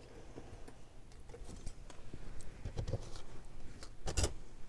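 Scattered small clicks and taps of metal brooches being handled and set down, with a louder knock about four seconds in.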